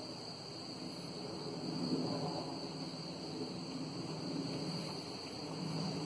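A distant helicopter's low rumble, swelling about two seconds in, under a steady high insect trill.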